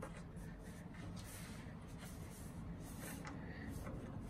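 Faint handling sounds as hands work a recumbent seat clamp's quick-release lever: light, scattered scrapes and rubs over a steady low hum.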